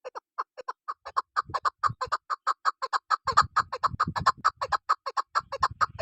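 Female chukar partridge (chakor) calling: a fast run of short clucking notes that starts sparse and quickly packs to about six or seven notes a second.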